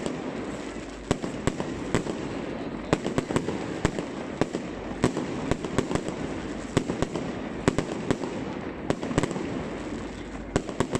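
Fireworks going off in a display: a quick, irregular run of sharp bangs and cracks, a few each second, over a steady background din.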